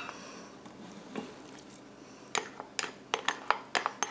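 Nylon spatula tapping and scraping against a glass bowl, a run of sharp, irregular clicks in the second half, as the last of the peas, carrots and egg are knocked out into the pot.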